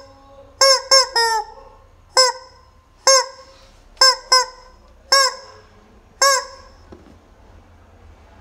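Rubber chicken squeeze toy squawking about nine times in short, loud honks, irregularly spaced and some in quick pairs, then falling quiet for the last couple of seconds.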